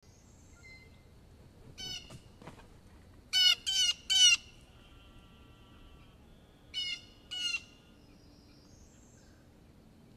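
Blue jays calling harshly: one call, then a loud series of three quick jeers, then two more, from birds mobbing a bald eagle at its nest.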